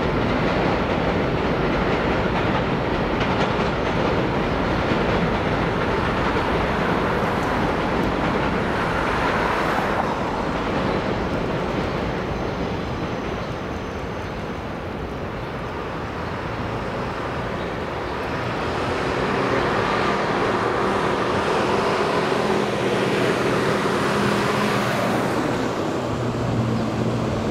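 Elevated subway train running along the viaduct, mixed with city street traffic. It is loudest over the first ten seconds, eases off in the middle, and swells again with a steady engine-like hum in the second half.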